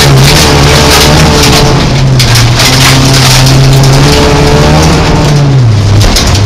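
Folkrace car's engine heard from inside the stripped cabin, running hard with its note rising and falling and dropping sharply about six seconds in. Dense rough noise from the tyres on the loose dirt surface runs underneath.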